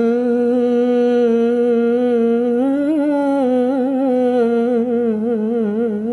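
A man singing a cappella, holding one long note. It stays steady at first, swells slightly upward about three seconds in, then turns to quick wavering ornaments in the second half.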